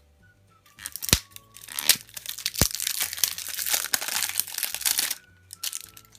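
Foil wrapper being torn and crinkled off a surprise egg, a dense crackling rustle for about four seconds with a few sharp clicks in the first half.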